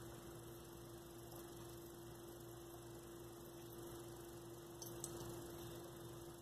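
Faint steady hum of a running ceiling fan in a quiet room, with a faint tap about five seconds in as a small plastic toy is set down on the stone counter.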